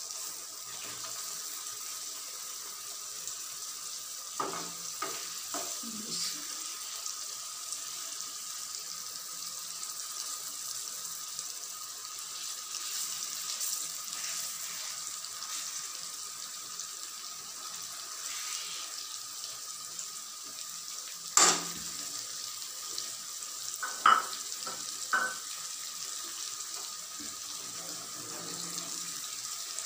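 Raw fish pieces frying in hot oily masala in a pot, a steady sizzle. A metal slotted spoon knocks and scrapes against the pot several times, loudest about two-thirds of the way through.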